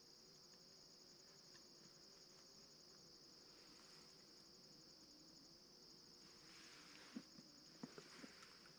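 Faint steady trilling of crickets in a night chorus, with a few small clicks late on.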